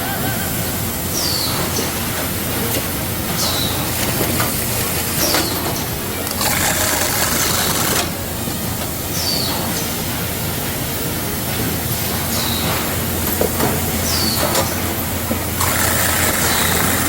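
Mandarin sorting and grading machinery running: a steady mechanical hum and rattle of conveyors and rollers, with short high squeaks repeating about every two seconds and a few stretches of louder rushing noise.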